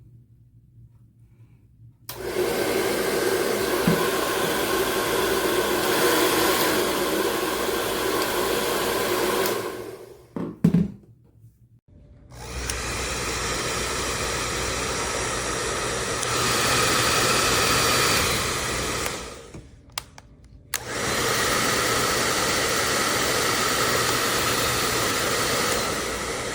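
WADODO 2200W ionic hair dryer with an AC motor, blowing with a steady rush and motor whine, switched on and off three times. A sharp knock falls in the first pause.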